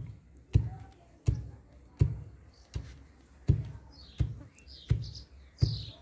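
Wooden pestle pounding hot roti in a clay mortar: heavy, regular thuds about every three-quarters of a second as the flatbread is crushed fine for churi. Birds chirp in the background near the end.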